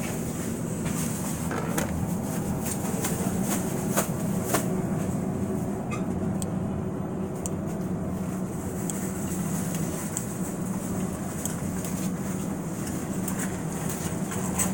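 Steady low hum of refrigerated produce display cases in a grocery store, with a few light clicks and knocks over it, two of them about four seconds in.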